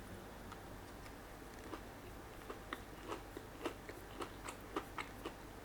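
Close-miked chewing of a Pon de Ring mochi donut with a crunchy golden coating. Faint, soft mouth clicks come about three a second, starting about two seconds in.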